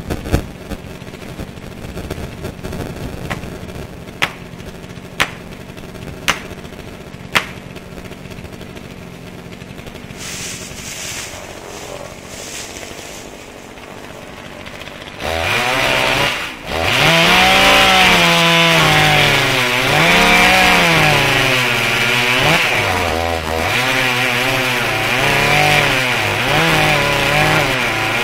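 Two-stroke chainsaw idling with a few sharp knocks about a second apart, then opened up to full throttle about halfway through, its pitch dipping and rising repeatedly as it cuts into the trunk.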